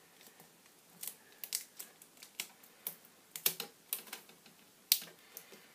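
Irregular light clicks and taps of small plastic laptop parts being handled while the LCD cable connector is lifted off, the sharpest click near the end.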